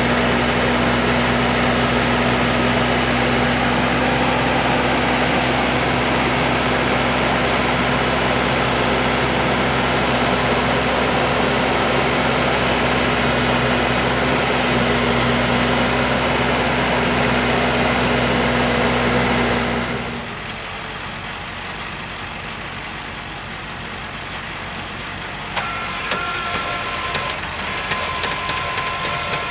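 Diesel engine of a Case backhoe loader idling steadily, close by. About twenty seconds in it drops away suddenly to a quieter engine hum, with a few light clicks near the end.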